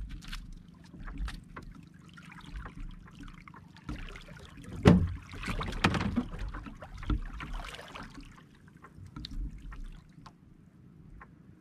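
Scattered knocks, clicks and rustles of fishing gear being handled in a small outrigger canoe, over water lapping at the hull. The loudest is a single thump about five seconds in, followed by a few seconds of busier handling noise.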